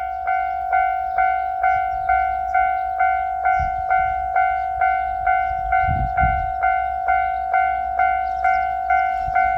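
Japanese level-crossing warning bell ringing steadily: a clear pitched 'kan-kan' repeating just over twice a second.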